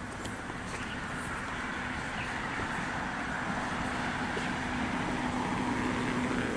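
Motor traffic noise: a vehicle's steady hum that grows louder toward the end, as if passing by.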